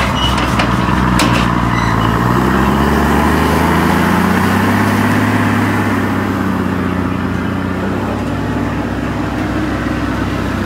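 Diesel engine of a tracked rice combine harvester running under load as it crawls through mud toward a truck's loading ramps. The engine's pitch climbs about two seconds in and eases back down around the middle.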